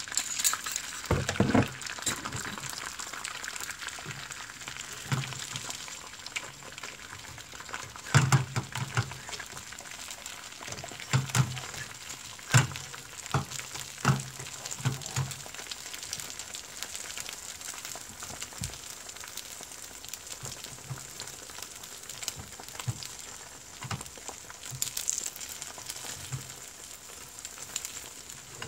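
Beaten egg sizzling and crackling in hot oil in a nonstick frying pan over medium heat, a steady hiss with fine pops throughout. A few sharp knocks come about a second in, around eight seconds in, and in a cluster between about eleven and fifteen seconds.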